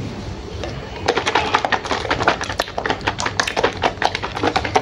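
Rapid, irregular crackling clicks from a small cardboard drink carton being handled and moved in the hand, starting about a second in.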